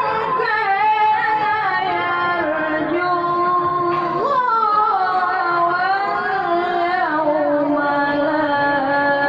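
Melodic Quran recitation (tilawah) by one voice, holding long ornamented notes that waver and glide between pitches. The uploader calls the reciter's voice wrecked because he is unwell.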